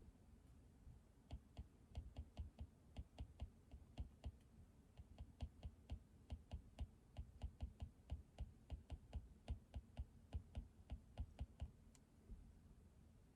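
Typing on a computer keyboard: a quick, uneven run of soft key clicks with a couple of brief pauses, stopping about a second before the end.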